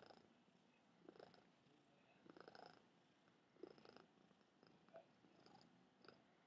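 Calico cat purring faintly, the purr swelling and fading in slow cycles about once a second.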